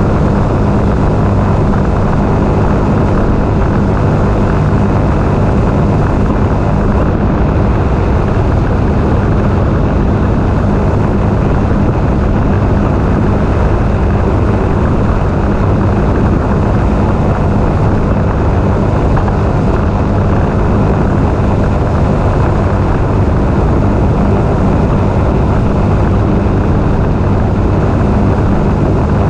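Sea-Doo Spark personal watercraft's three-cylinder Rotax engine and jet drive running at a steady throttle while cruising. It is a loud, even drone with no rise or fall in pitch.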